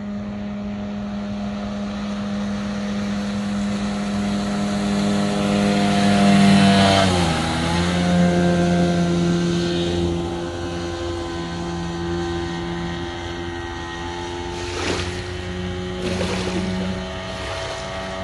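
25 hp outboard motor on a small rigid inflatable boat running at full throttle. It grows louder as the boat comes by, and its note drops in pitch about seven seconds in as the boat passes, then runs on steadily as it moves away. Two short rushes of noise come near the end.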